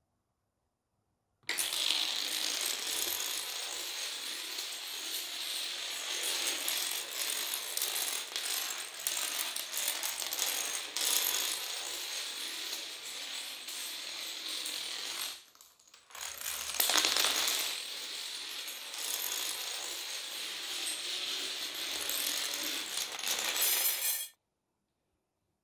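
A long chain of toy dominoes toppling one after another: a rapid, continuous clicking clatter that starts about a second and a half in, breaks off briefly past the middle, then resumes and stops abruptly near the end.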